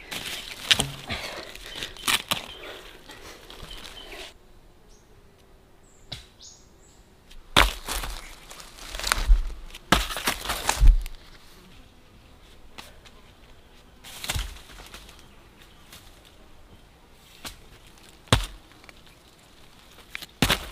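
A digging tool scraping and crackling through soil and dry leaves for the first few seconds. Then freshly dug bamboo shoots land one after another on a pile of shoots, each with a sharp knock and a dull thud, several close together in the middle and single ones later.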